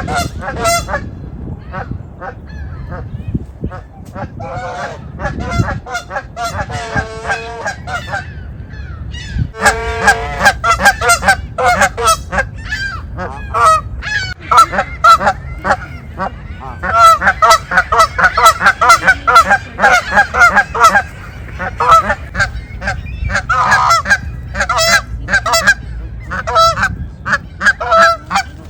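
A flock of Canada geese honking loudly, many short calls overlapping. The calls are fewer at first and come thick and fast from about a third of the way in.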